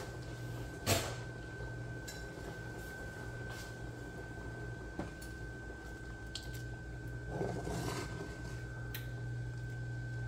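Cooking utensils handled against a pot: one sharp clink about a second in, a few lighter clicks after it and a short rustle near the end, over a steady kitchen hum.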